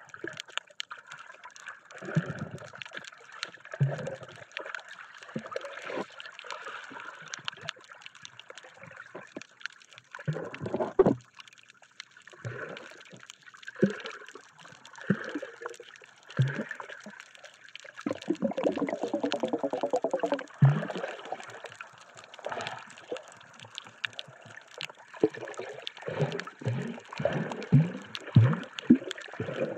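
Water heard through a camera held underwater while snorkelling: irregular gurgling, sloshing and splashing as the camera moves through the water. A buzzing stretch comes about two-thirds of the way through.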